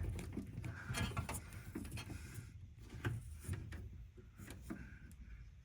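Faint, scattered clicks and light knocks of hands working a classic VW Beetle's headlight switch and its wiring out from behind the dashboard.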